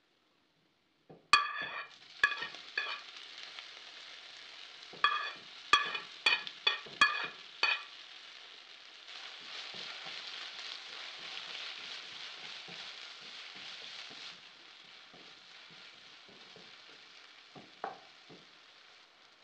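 Chopped tomatoes sizzling in hot oil in a non-stick wok while they are stirred with a wooden spatula. About a second in, a run of sharp knocks that ring the pan; the sizzle swells between about 9 and 14 s, then eases, with a few soft knocks near the end.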